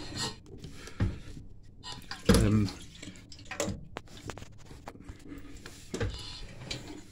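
A Royal Enfield Bullet 500 single-cylinder engine being kicked over on its kickstart with the decompressor held open, so it turns over without firing. There are a few thumps of the kickstart and engine, the loudest about two seconds in.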